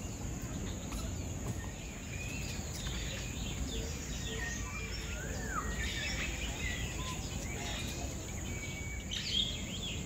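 Assorted bird chirps and short whistles over a steady high insect hum and a low outdoor background rumble. The calls come scattered throughout.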